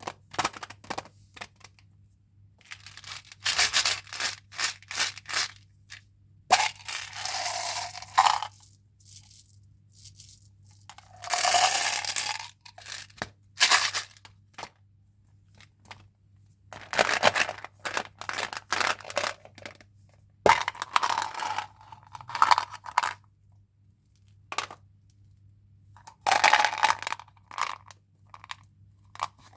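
Candy and gum packaging being handled and opened: crinkling and tearing of wrappers in bursts of a second or two, with small clicks and rattles between them and pauses in between.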